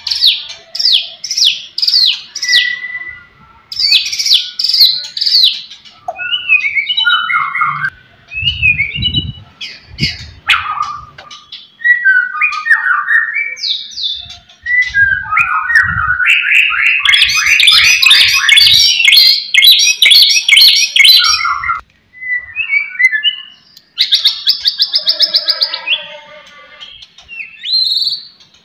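White-rumped shama singing a loud, varied song: runs of quick downward-slurred whistles, about five a second, then jumbled twisting phrases, and a long fast chattering trill in the middle, with another quick run near the end. A few dull low thumps come among the phrases in the middle.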